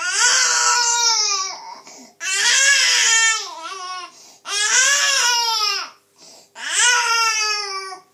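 A five-month-old baby crying: four long wailing cries, each rising then falling in pitch, with short catches of breath between them.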